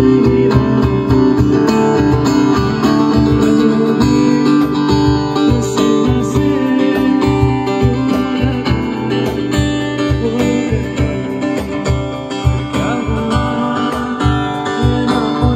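Acoustic guitar strummed in a steady, even rhythm.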